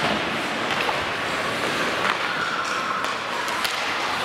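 Ice hockey game noise in an indoor rink: a steady hiss of skates on the ice, with a few sharp clacks of sticks and puck.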